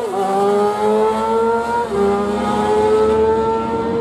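Two drag-racing motorcycles at full throttle. The engine pitch climbs steadily and drops sharply at each upshift, once right at the start and again about two seconds in.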